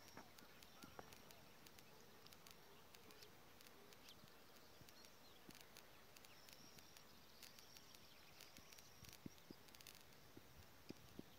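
Near silence outdoors: faint insects buzzing, with a few soft clicks scattered through.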